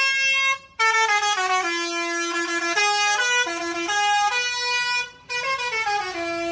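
Indonesian tour bus telolet horn, a multi-tone musical air horn, playing a tune of held notes that step from pitch to pitch. It breaks off briefly twice, about a second in and again about five seconds in.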